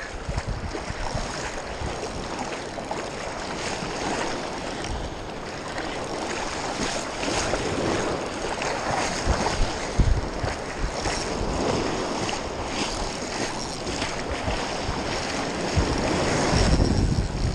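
Ocean surf washing and breaking, with wind buffeting the microphone in low rumbles that grow stronger near the end.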